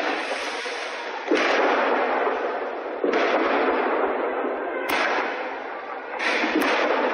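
Firework mortars going off again and again: sharp bangs, several seconds apart, over a steady rushing noise.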